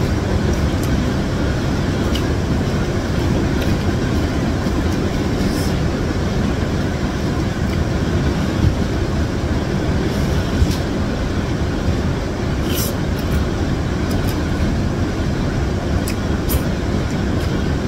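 Steady rumble of heavy rain heard from indoors, with a few short slurps and mouth sounds from instant noodles being sucked up and eaten.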